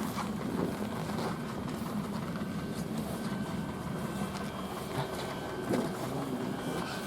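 A vehicle engine idling steadily, with a few faint knocks scattered through it.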